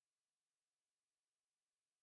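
Near silence: no audible sound, only a very faint, even hiss.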